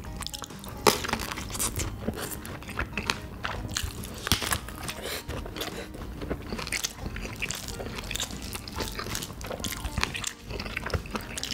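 Close-miked eating sounds of a person biting and chewing kielbasa sausage and curry rice, with many short, sharp wet mouth clicks.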